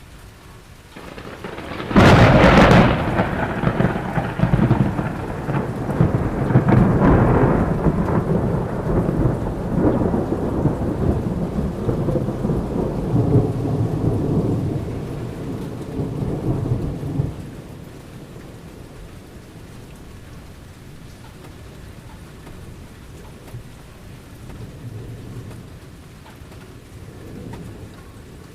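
Thunderstorm: a sharp thunderclap about two seconds in, rolling into a long rumble that dies away after about fifteen seconds, over steady rain.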